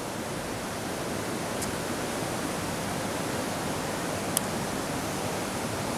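Steady rushing of a mountain headwater stream, with two faint short clicks about a second and a half and four and a half seconds in.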